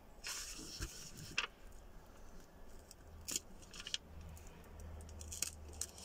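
A sheet of A4 paper torn by hand along a scored crease: a string of short, crisp rips and crackles, in two spells.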